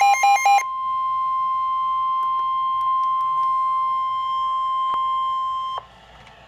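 NOAA Weather Radio alert signals: the tail of a warbling SAME digital header burst, then the steady 1050 Hz warning alarm tone held for about five seconds before cutting off suddenly into faint hiss. The alarm tone signals that a warning message is about to be read.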